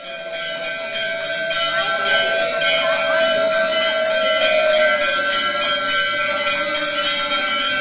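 Temple bells ringing fast and without pause, about four or five strikes a second, the strikes running together into a steady ring.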